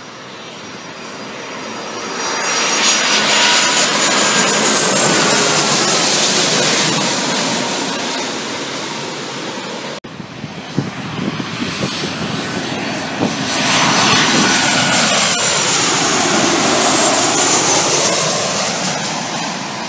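Two jet airliners pass close by, one after the other. Each builds to a loud engine roar with a high whine that falls in pitch as it goes by.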